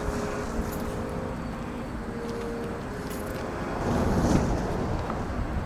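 Subaru WRX turbocharged flat-four running at low revs through a Tomei Ti Extreme exhaust, a steady low rumble that grows louder about four seconds in.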